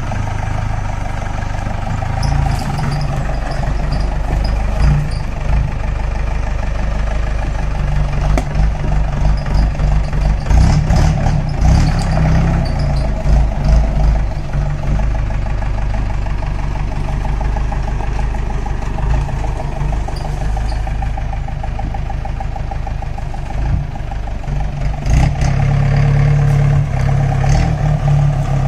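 4x4 jeep engine running steadily, with bursts of knocks and rattles about a third of the way in and again near the end.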